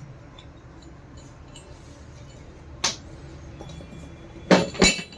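Metal parts knocking together: one sharp clink about three seconds in, then three loud clanks in quick succession near the end.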